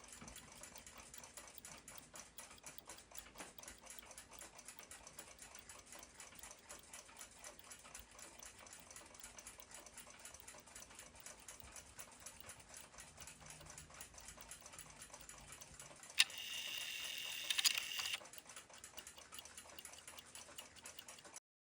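1926 Chelsea ship's bell clock movement ticking faintly and rapidly, its balance escapement running. About sixteen seconds in, a brighter, higher sound comes in for about two seconds and then cuts off.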